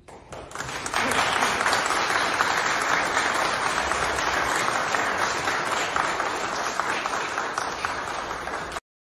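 Audience applauding, swelling up over the first second, then holding steady until it cuts off suddenly near the end.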